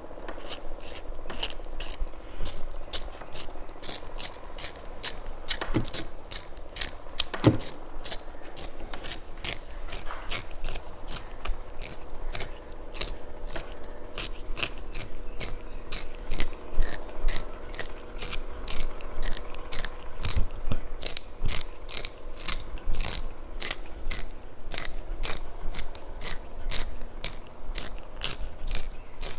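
Kinetic sand being worked with a tool or cut, giving a steady run of short crisp clicks, about three a second.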